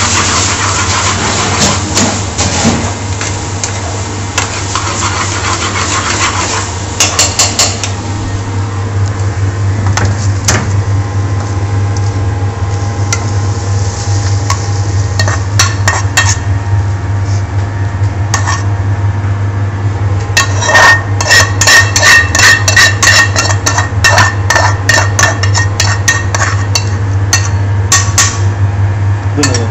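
Metal spoon stirring, then scraping and knocking against an aluminium frying pan as curry is scraped out into a foil takeaway tray, with many sharp knocks and scrapes in the second half. At first the sauce sizzles in the pan, and a steady low hum runs underneath.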